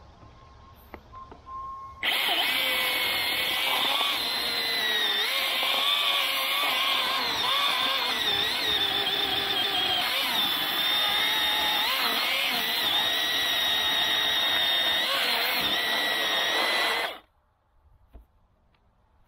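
Battery-powered Milwaukee M18 Fuel chainsaw cutting off a tree stump. It starts suddenly about two seconds in and runs steadily for about fifteen seconds, its whine wavering in pitch as the chain loads up in the wood, then cuts off suddenly.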